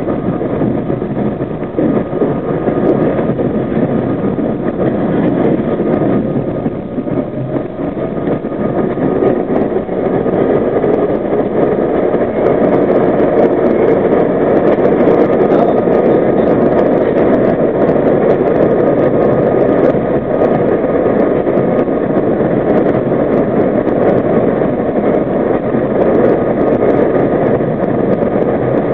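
R32 subway car running through a tunnel: a steady rumble of wheels on rail and running gear. It grows louder over the first ten seconds or so, then holds level.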